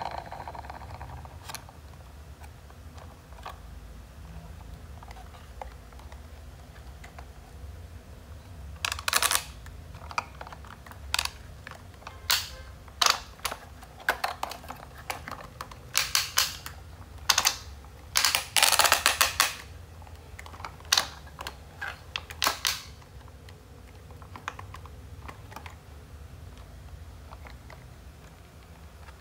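Hard plastic clicking and clattering as a toy excavator truck is handled and its arm moved. The clicks are sharp and irregular, some in quick bunches, and fall mostly in the middle stretch.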